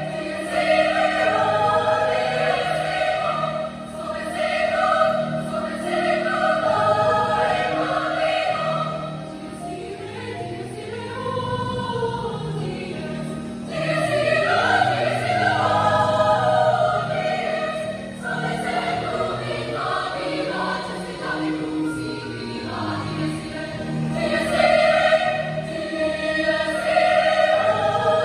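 Women's choir singing in long held chords, phrases swelling louder and falling back softer several times.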